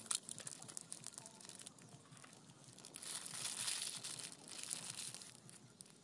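Thin plastic seasoning sachets crinkling and being torn open, with scattered small clicks and a louder stretch of rustling about three seconds in.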